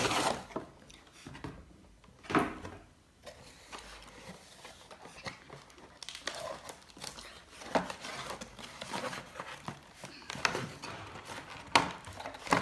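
Toy packaging being opened by hand: scattered rustling and crinkling with a few sharp clicks and knocks as the toy claw is worked free of its box.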